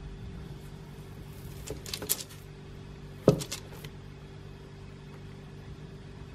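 Light taps of a long kitchen knife blade on a slab of pistachio turron as it is marked into bars, with one sharper metallic click about three seconds in. A steady low hum lies under it.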